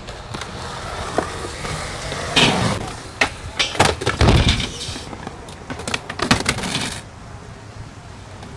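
Skateboard wheels rolling on concrete, then a series of loud clattering knocks and a heavy thud about four seconds in as the skater and board slam on a quarter pipe, with more board clacks around six seconds in.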